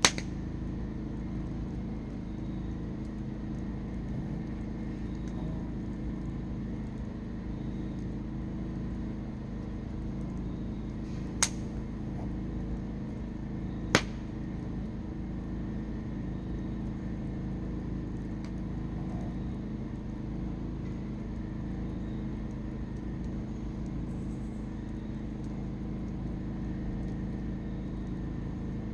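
Waterfall, rushing water making a steady, even rush of noise. Two sharp clicks stand out near the middle, about two and a half seconds apart.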